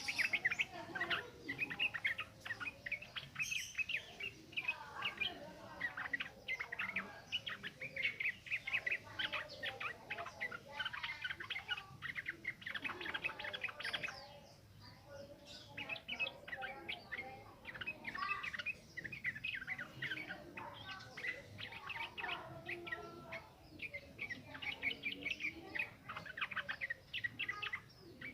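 Yellow-vented bulbul (trucukan) singing a fast, continuous run of bubbling, chattering notes, with a brief lull about halfway through.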